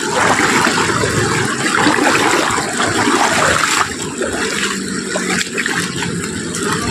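Shallow river water rushing and splashing around a person wading through it, loudest for the first four seconds and then easing.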